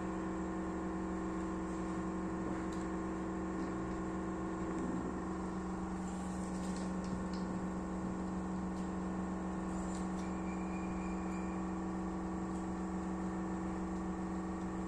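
Steady machine or electrical hum, one unchanging low drone with a higher tone above it, with a few faint clicks a few seconds apart.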